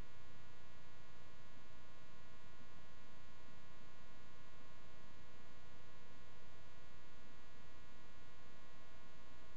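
Steady electrical mains hum with a buzz of many evenly spaced overtones, unchanging throughout; nothing else is heard.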